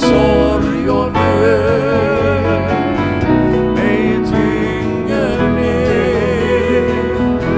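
Live country-gospel song: male voices singing with acoustic guitar, piano, bass and steel guitar.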